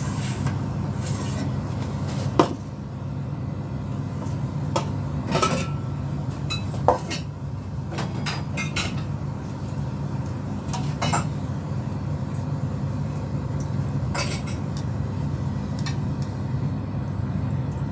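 Kitchen clatter: metal trays, dishes and utensils clink and knock now and then, with sharp knocks about two and a half and seven seconds in, over a steady low hum.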